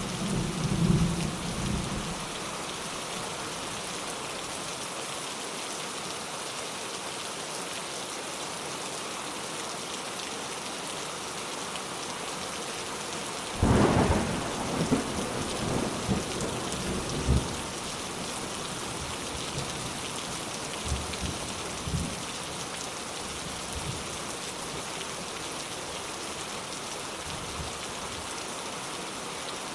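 Steady rainfall with thunder. A low rumble fades out about two seconds in. About halfway through a loud thunderclap breaks and rolls on for a few seconds, followed by fainter rumbles.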